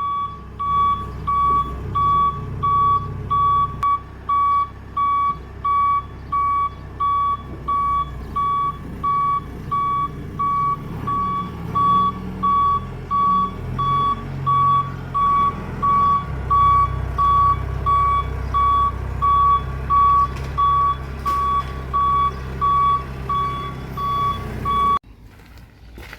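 Telehandler's reversing alarm beeping about once a second over its running diesel engine while the machine backs up; the beeping and engine cut off abruptly near the end.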